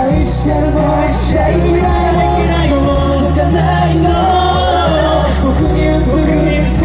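A male vocalist singing a pop song live into a handheld microphone, amplified through the stage sound system over recorded music with a steady low bass.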